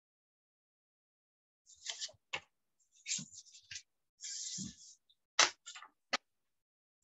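A scattered run of short clicks and rustles with a brief hiss in the middle, starting about two seconds in and stopping about a second before the end, with dead silence between and around them: a person shifting and handling things close to a computer microphone.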